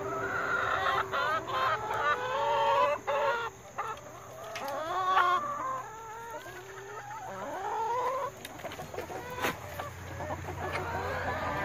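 Several backyard hens clucking at once, a continuous overlapping chatter of short wavering calls.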